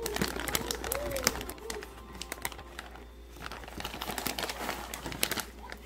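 Paper coffee-bean bag crinkling and rustling as hands open it: a run of dry crackles and rustles.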